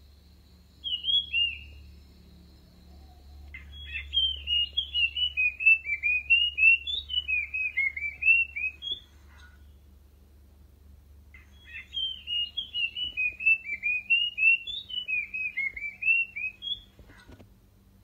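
Puff-throated babbler singing: a short two-note whistle, then two long runs of quick, jumbled whistled notes, each lasting about five and a half seconds.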